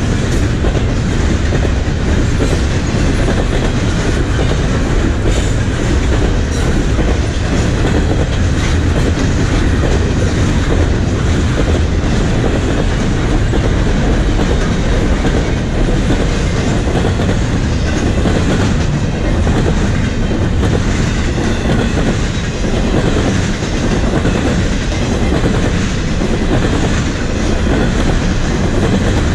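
Steady loud rolling rumble of a CPKC double-stack intermodal freight train's well cars passing, with the wheels clicking over the rail joints.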